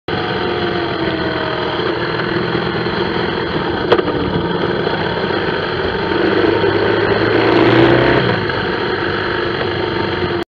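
Motorcycle engine running at low speed in traffic, heard from a camera mounted low on the bike, with road and wind noise. There is a sharp click about four seconds in. The engine note rises and gets louder between about six and eight seconds in, then drops back.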